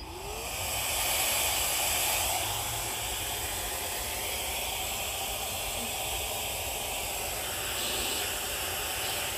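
MECO ME-CR1 cordless handheld vacuum switched on and sucking up small hive beetles from a honeycomb frame: a steady rushing hiss of air with a motor whine that rises in the first half-second as it gets up to speed, then holds.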